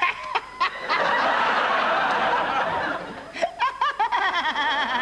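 Audience laughter swells about a second in and lasts for about two seconds. Then a man laughs in wavering giggles.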